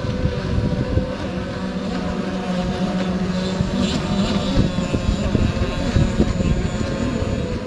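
Model racing power boats' motors buzzing steadily as the boats run at speed across the water.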